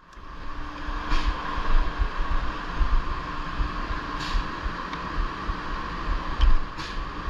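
Steady mechanical drone of woodworking-shop machinery, with an uneven low rumble underneath. Three brief hisses come about a second, four seconds and seven seconds in.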